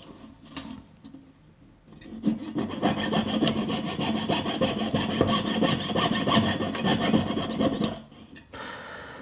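Jeweller's piercing saw cutting through 1 mm silver wire held on a wooden bench peg: a fast, even run of short back-and-forth strokes that starts about two seconds in and stops about a second before the end, as the saw cuts a jump ring free from the wire.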